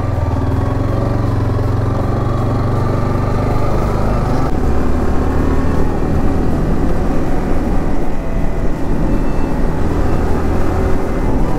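Sport motorcycle engine running while riding, a steady low engine note. About four and a half seconds in it changes abruptly to a louder, rougher engine sound mixed with road and wind noise.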